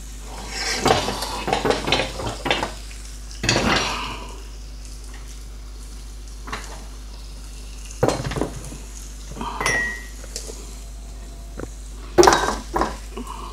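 Metal utensils clinking and scraping against pans and plates in several short bursts, with a low sizzle of frying underneath.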